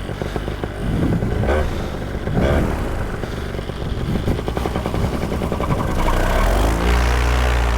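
Vittorazi Moster 185 single-cylinder two-stroke paramotor engine running with its propeller, uneven at first; about six seconds in the revs climb and hold at a higher, steady pitch.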